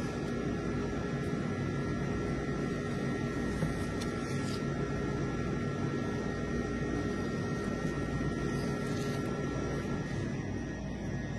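A steady machine hum with several held tones, the kind a fan, motor or ventilation unit gives; a few faint light ticks sit on top of it.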